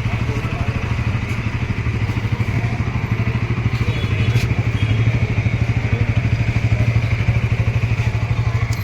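Bajaj Pulsar NS200's single-cylinder engine idling with an even, pulsing beat, cut off abruptly right at the end.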